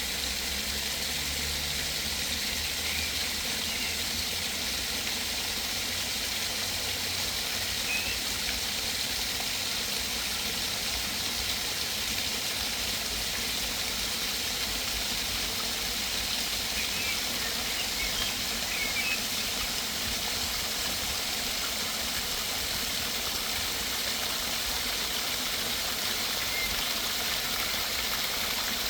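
Small forest waterfall running steadily, a constant splashing rush of water, with a few brief bird chirps now and then and a low rumble in the first several seconds.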